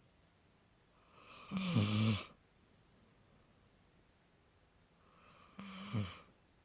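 A dog snoring: two snores about four seconds apart, each a low buzzing breath. The first is the louder.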